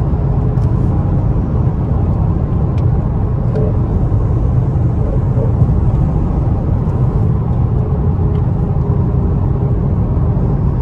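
Infiniti Q50's twin-turbo VR30 V6 and road noise while driving at an even pace: a steady low rumble with no revving.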